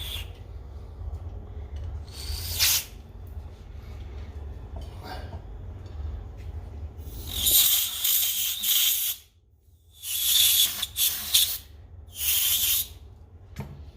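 Aerosol spray cleaner hissing in short bursts onto small stove parts: one brief spray about two seconds in, then three longer ones in the second half.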